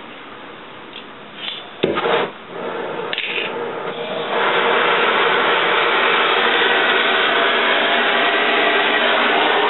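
A sharp metal clank and a few knocks from tool work on rusty crawler running gear. Then, about four seconds in, a loud, steady rushing, rasping noise starts and keeps going.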